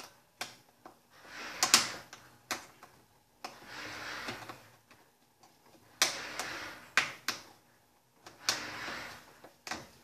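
Stiff metal springs holding a top-loading washing machine's tub being worked off by hand: a series of sharp clicks, some in quick pairs, between stretches of rustling and scraping.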